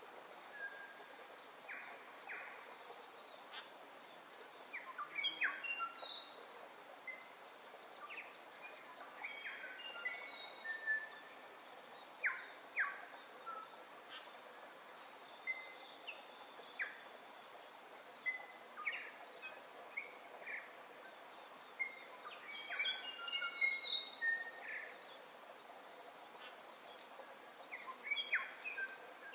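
Wild birds chirping and whistling: many short calls, some sliding in pitch, scattered throughout over a steady background hiss.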